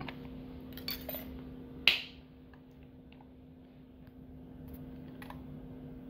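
Small metallic clicks of lock picks working a Master Lock 570 padlock, with one sharp click about two seconds in, then a few faint ticks.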